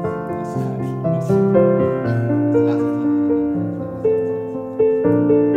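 Background piano music, a gentle melody of sustained notes over a steady accompaniment.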